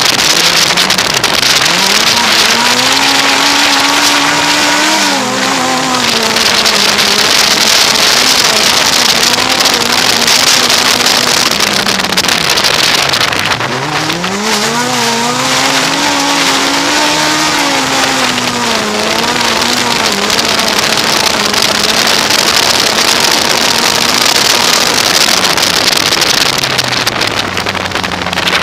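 Inside an autocross car's cabin, its engine revving hard and rising and falling in pitch as it accelerates and lifts for the corners, dropping deepest about halfway through before climbing again. A steady rushing hiss runs under it.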